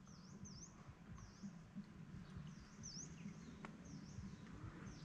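Faint calls of a small bird: a short, high, dipping-and-rising chirp repeated several times at uneven intervals over a quiet outdoor background.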